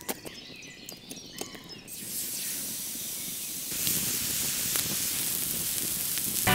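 Campfire wood crackling and knocking for the first second or so, then a raw beef fillet sizzling steadily as it sears on a hot pink stone slab set over the coals, the sizzle growing louder about four seconds in.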